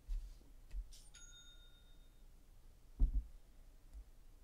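A single bright bell-like ding about a second in, ringing for about a second as it fades. A dull thump about three seconds in.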